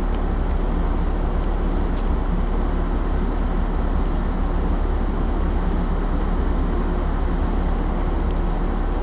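Steady low rumble and rushing noise of a large ship under way: a hum from the ship's machinery mixed with wind and the sea along the hull.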